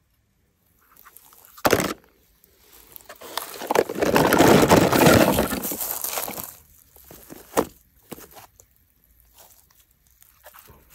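Hands handling a toy car and a plastic tub of kinetic sand on grass and dry leaves: a sharp knock about two seconds in, then a few seconds of loud rustling and scraping, and a couple of small clicks after.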